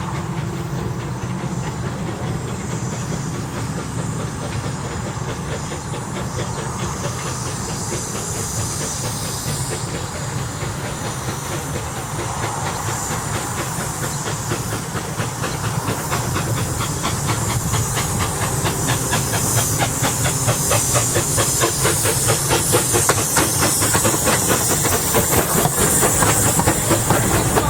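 Edison 4-4-0 steam locomotive running with its train: steam hissing over a fast, even beat of exhaust and rail clatter, growing louder and hissier in the last third.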